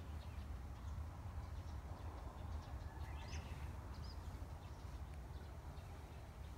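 A bird chirps briefly twice about halfway through, over a steady low rumble of wind on the microphone.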